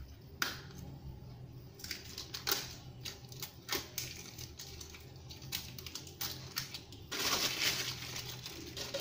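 Crackling and clicking as a roll of duct tape is handled and its end picked free. About seven seconds in comes a louder rasping noise lasting about two seconds.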